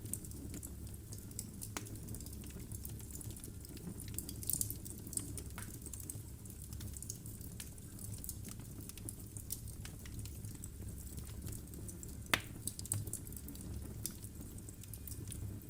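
Logs burning in a fireplace: irregular crackles and small pops over a low, steady rumble of the fire, with one louder pop about twelve seconds in.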